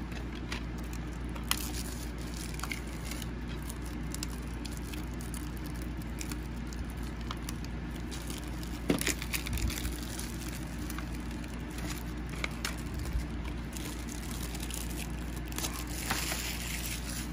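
Plastic shrink-wrap being peeled off a DVD case, crinkling and crackling with scattered sharp clicks, and a louder stretch of crinkling near the end.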